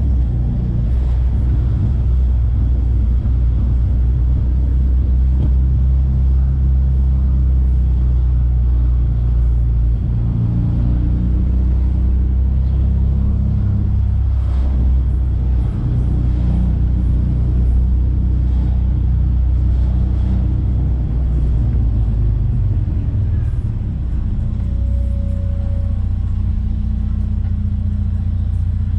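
Volkswagen Santana's AP 2.0 four-cylinder engine running under way with a deep, steady rumble, its pitch shifting several times as the car changes speed.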